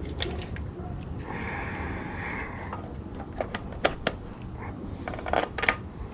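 Hands handling small parts: a rustling, hissing noise about a second in lasting over a second, then several sharp clicks and knocks, over a steady low rumble.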